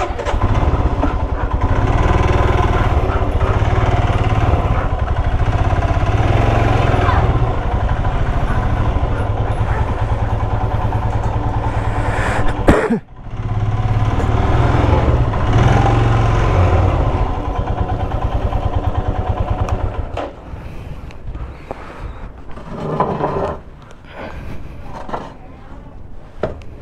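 Royal Enfield Himalayan's single-cylinder motorcycle engine running steadily and loud. It cuts out for a moment about halfway through, then picks up again, and becomes quieter and more uneven for the last several seconds.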